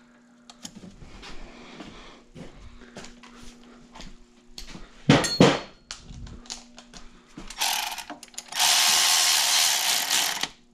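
Two loud knocks about five seconds in, then a power tool runs in a short burst and again for about two seconds near the end.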